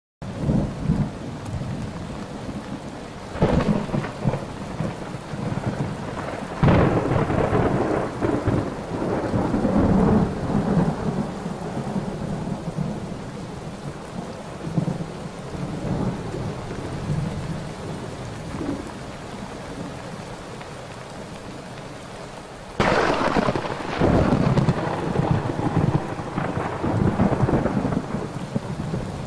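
Thunderstorm: a steady hiss of rain with thunder cracking about three and a half and seven seconds in and rolling on in long rumbles. After a quieter stretch of rain, another sudden, loud thunderclap comes near the end and rumbles on.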